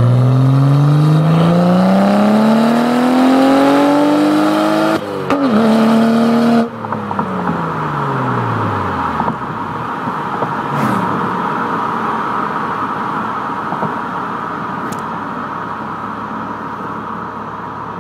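Tuned BMW E92 335i's N55 turbocharged straight-six with quad exhaust and downpipe accelerating at full throttle. The engine note climbs for about five seconds, dips briefly at a gear change and pulls again, then cuts off sharply a little under seven seconds in. The note falls away over the next two seconds, and a steady rushing noise is left.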